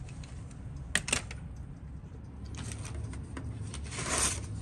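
Handling noises of a watch case being moved on a workbench: two sharp clicks about a second in, then brief rustling and a louder scraping noise near the end.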